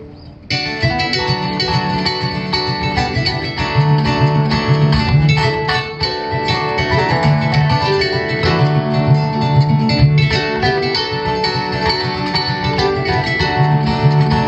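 Acoustic ensemble of guitar and kamale ngoni playing plucked-string bluegrass–West African fusion music. It comes in after a brief pause about half a second in, and a repeated low bass figure grows louder from about four seconds in.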